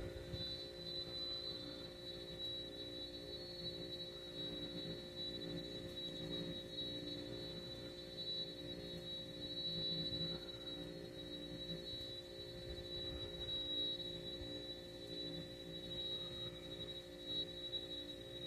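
A steady high-pitched whine over a lower steady hum, with faint soft rustling of yarn being worked with a crochet hook underneath.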